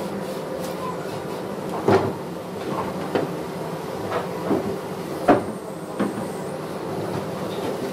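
Wooden sliding wardrobe door pushed back and forth along its top track, knocking several times against the frame, loudest about two and five seconds in, over a steady hum.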